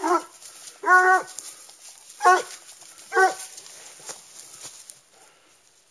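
Leashed hunting hound baying on the trail of wild boar: four loud, short, pitched barks about a second apart, then two fainter ones.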